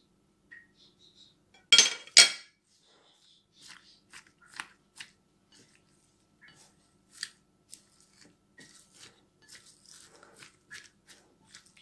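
Kitchen utensils against a bowl: a silicone spatula scraping a spoon, with two sharp knocks about two seconds in, then light scattered clicks and rustles as the spatula tosses chopped vegetables in the bowl.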